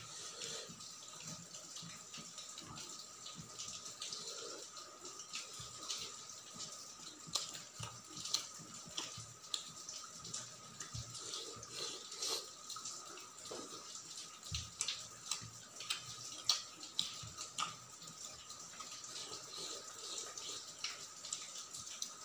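Close-miked eating sounds: wet chewing and lip smacking while fingers mash and mix rice with curry on a steel plate, a string of irregular soft clicks and squelches. Under it a faint steady whine.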